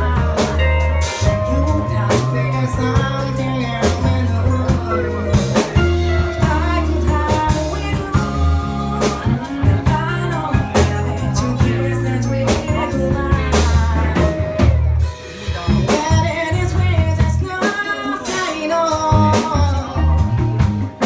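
A live band playing a song, with a singer, a drum kit, a bass line and guitar.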